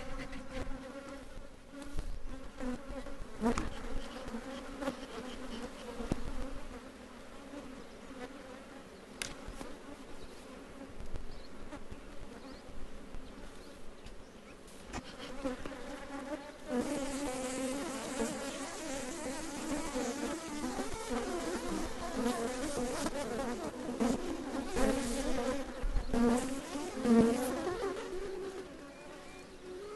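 A mass of honey bees buzzing in a dense, wavering drone, with single bees zipping close past, growing louder about halfway through. They are an aggressive, defensive colony stirred up by the opened hive and going after the beekeeper.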